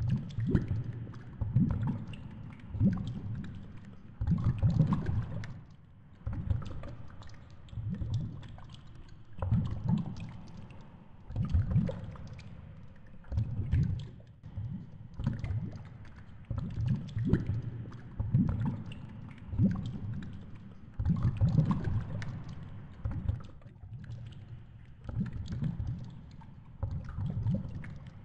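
Underwater noise picked up through a camera housing on the seabed: water surging in repeated low pulses, roughly one every one and a half to two seconds, with faint crackling over it.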